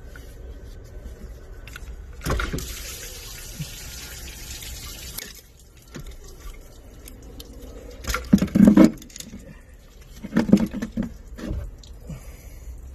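Aluminium cylinder head of a Toyota Previa 2TZ-FE engine being worked loose and lifted out of the engine bay: a hissing rush for about three seconds starting two seconds in, then heavy metal clunks and knocks around eight and again around ten and a half seconds in.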